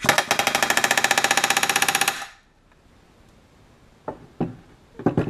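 Pneumatic rivet gun hammering a solid aircraft rivet against a bucking bar: one burst of rapid, even blows lasting about two seconds, long enough that the rivet may be overbucked. A few light clicks follow near the end.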